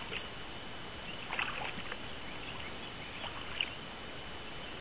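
Water sloshing against a boat's hull, with a few short splashes as a large hooked fish thrashes at the surface alongside, over a steady background hiss.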